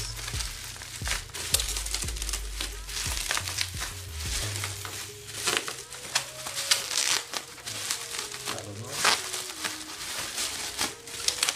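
Plastic shipping packaging crinkling and rustling in irregular bursts as a parcel is torn open by hand.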